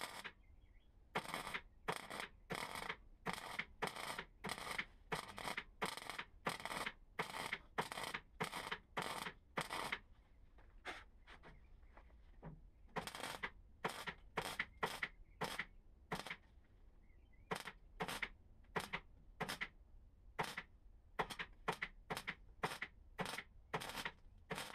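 MIG welder laying a run of short tack welds along a steel car-body panel seam, the outer A-post of a Triumph Vitesse. The welds come as short bursts at about two a second, with two brief pauses.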